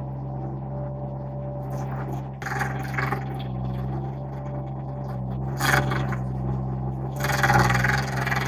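Derette V1000 mini skid steer engine running steadily while its hydraulic stump grinder cuts into a stump. The grinding comes in scraping bursts about two and a half seconds in and near six seconds, then grows louder from about seven seconds on.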